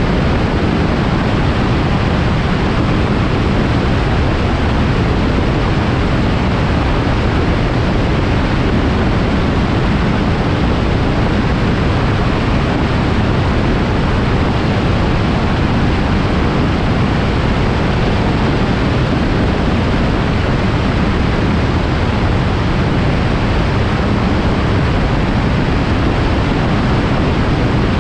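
Microlight aircraft in flight: a loud, steady rush of wind and engine noise that never changes.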